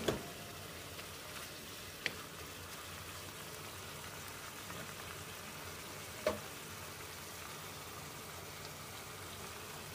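Pork strips in sauce sizzling faintly in a frying pan, with two light clicks of a wooden spatula against the pan, about 2 and 6 seconds in.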